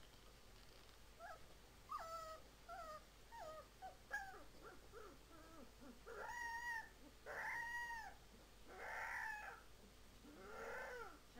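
Husky puppy howling: short squeaky whines and yips in the first few seconds, then four short howls from about six seconds in, each rising and then falling in pitch, the last two rougher.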